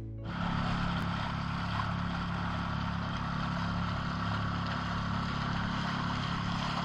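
Small outboard motor on an inflatable boat running at a steady speed: a low, even hum under a broad hiss.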